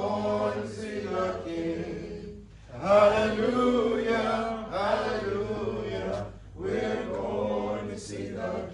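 A hymn sung without instruments, in four held phrases of about two seconds each with short breaks between.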